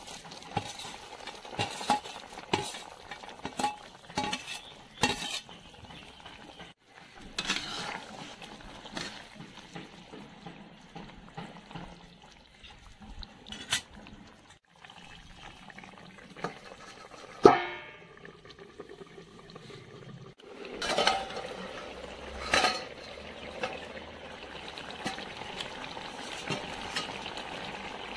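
Perforated metal spatula knocking and scraping against a metal kadai as fried fish is stirred into boiling green tomato curry, with one sharp ringing clang of the spatula on the pan about two-thirds through. The curry bubbles steadily toward the end.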